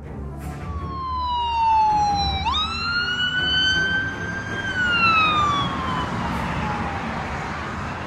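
Ambulance siren wailing in slow glides. The tone falls, jumps up about two and a half seconds in, climbs slowly, then falls away in the second half, over a steady rushing noise.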